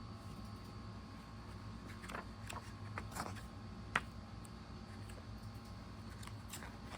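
Faint handling noises: a few soft rustles and a sharp click about four seconds in, over a steady low hum.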